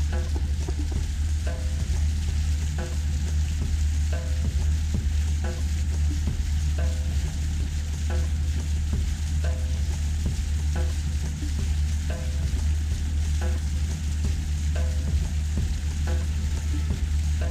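Motorboat running along a river: a steady low engine hum under a hissing rush of water and wind. A faint soft tone recurs about every one and a half seconds.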